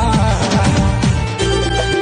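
Instrumental passage of a Sambalpuri song, with held melody notes over a busy low accompaniment and no vocals.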